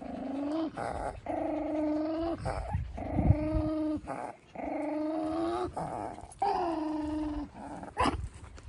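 Small dog growling in about six long, drawn-out calls of roughly a second each, held at a steady pitch, while it is held and wiped. A short sharp click comes near the end.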